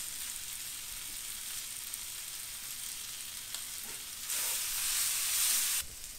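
Sliced bell peppers and onions sizzling steadily in a hot skillet as they caramelize. About four seconds in, stirring with a wooden spoon brings a louder burst of sizzling that lasts about a second and a half.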